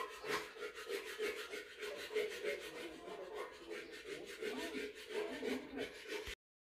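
Fabric rubbing and rustling as hands smooth and handle a shirt's neckline, with scissors trimming the excess edges; the sound cuts off abruptly near the end.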